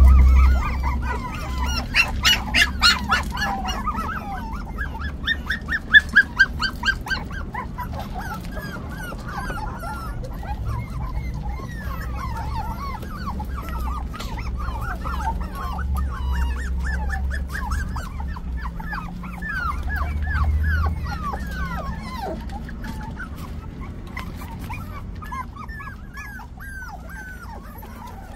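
Five-week-old terrier puppies whining and yipping in many short, high squeals that bend up and down, with two runs of louder yips about two and about six seconds in. Light clicks sound among the calls.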